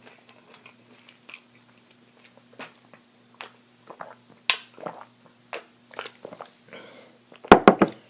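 Close-miked chewing and mouth sounds of someone eating French fries, with scattered small clicks and smacks. A loud cluster of sharp knocks comes near the end.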